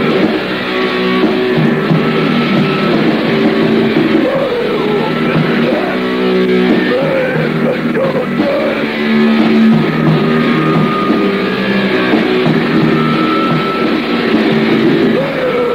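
1980s heavy metal recording with distorted electric guitars, playing continuously. The sound is muffled, with no treble.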